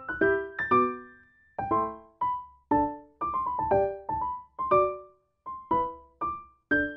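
Background music: a light piano tune of separately struck notes, each dying away, several a second.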